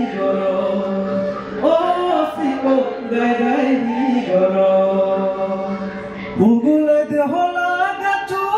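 Men singing a slow, chant-like traditional song through microphones, holding long notes that step from pitch to pitch; a new phrase begins about six and a half seconds in.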